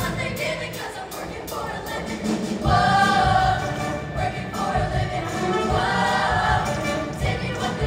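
High school show choir singing with instrumental accompaniment, the sung chords swelling louder about three seconds in.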